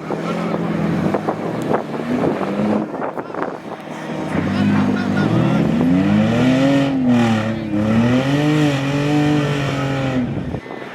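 Off-road 4x4 vehicle's engine running, then from about four seconds in revving up and down again and again, its pitch rising and falling, until it cuts off sharply near the end.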